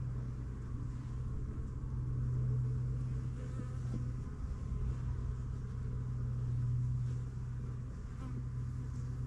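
Honeybees buzzing around the hive in a steady hum.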